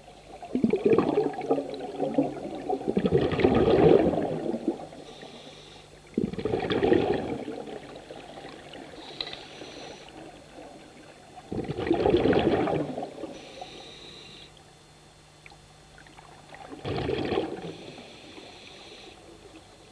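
Scuba diver breathing through a regulator underwater: bubbling exhalations come four times, a few seconds apart, with a fainter hiss of inhalation between them.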